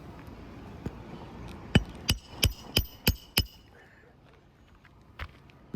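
Hammer blows on a metal shingle snake tool, driving a roofing nail in under a lifted asphalt shingle. A quick run of six ringing metal-on-metal strikes at about three a second, then one more strike near the end.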